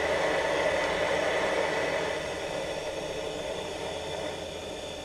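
Pressurised kerosene burner of a Coleman 168K table lamp hissing steadily as it burns, fading gradually over the last three seconds.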